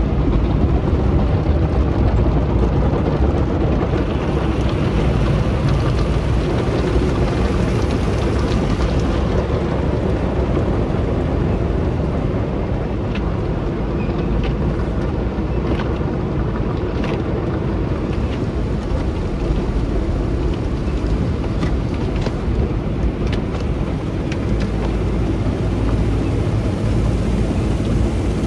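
Car wash equipment running: a steady, loud rushing noise with a strong low rumble and a few faint ticks in the middle.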